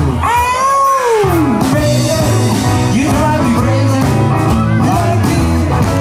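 Live rock-and-roll band with two male singers. Near the start the bass and drums drop out for about a second while a voice holds a long wail that rises and falls, then the full band comes back in under short shouted vocal phrases.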